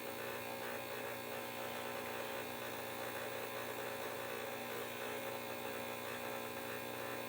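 Steady electrical hum with several constant tones, unchanging throughout.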